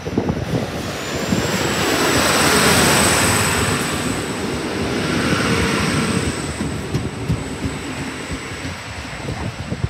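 NSW TrainLink Endeavour diesel railcar running past along the platform: engine and wheel-on-rail noise swelling to a peak a few seconds in and then easing. A thin, steady, high whine sets in about a second in and holds.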